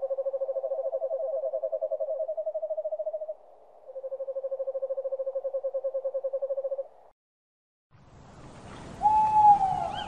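Owl calls: two long, even trills of rapid pulses held at one pitch, with a short break between them. After a moment of silence, a single short hoot with a slightly falling end sounds near the end over a faint hiss, louder than the trills.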